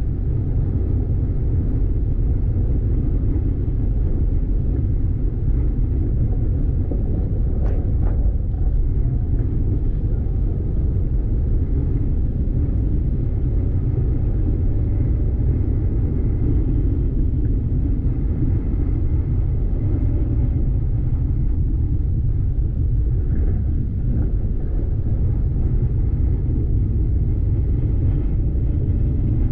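A vehicle driving on a dirt road: a steady low rumble of engine and tyres, with a few faint knocks now and then.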